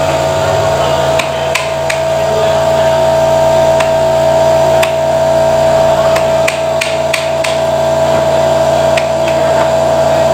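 A machine hums steadily in the workshop while sharp knocks and taps sound irregularly over it, several of them in quick succession just past the middle.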